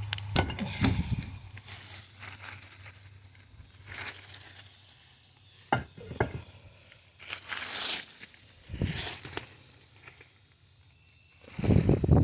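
Irregular rustling and scraping with a few dull thumps: something heavy being worked at and shifted by hand in the dirt and vegetation of a yard.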